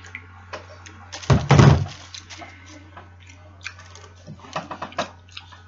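A thump about a second and a half in, then close-up biting and chewing of a cheeseburger: small wet clicks and crackles, over a steady low hum.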